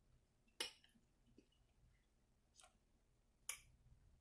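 Near silence with a few faint, sharp mouth clicks of a person chewing food, three in all.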